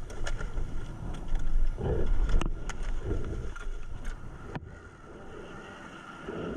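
Wind rumbling on the microphone on a small boat crossing open water, with a few soft thuds. The sound drops off suddenly about two-thirds of the way through to a quieter, steady noise.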